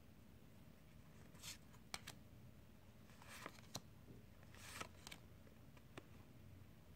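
Faint handling of Magic: The Gathering cards as they are slid one by one from the front of a hand-held stack to the back: three soft swishes of card sliding on card and a few light clicks and snaps of card edges.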